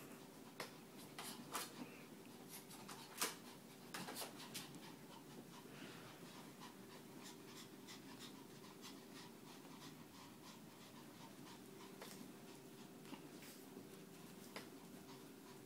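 Quiet room with a steady low hum and scattered faint clicks and scuffs from a small dog moving about on carpet. The loudest clicks come about three and four seconds in.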